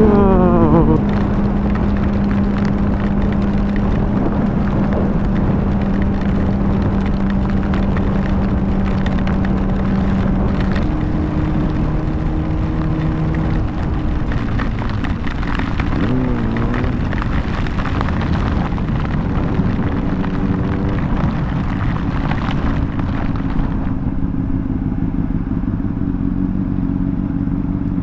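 2009 Honda CBR600RR's inline-four engine running while riding, heard with wind rush from a helmet-mounted microphone. The engine pitch falls about a second in, steps up around eleven seconds and dips and rises again around sixteen seconds as the rider works the throttle and gears. Near the end the rushing noise thins out.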